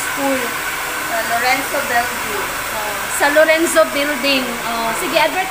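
Handheld hair dryer running steadily, a constant airy whoosh.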